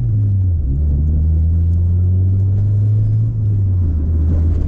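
Acura Integra's engine and road rumble heard from inside the car while driving: a steady low drone that eases slightly in pitch at the start, with a brief dip a little past three seconds in.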